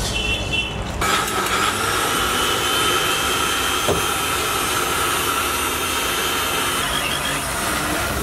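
Sujata electric mixer grinder running at full speed, a steady high-pitched motor whine that starts about a second in, blending milk and fruit into a milkshake.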